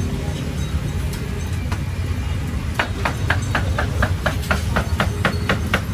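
Steady low engine rumble. About halfway through, a fast, even run of sharp knocks starts, about five a second.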